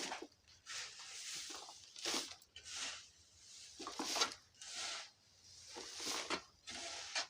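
A series of short, dry rustling scrapes, roughly one a second.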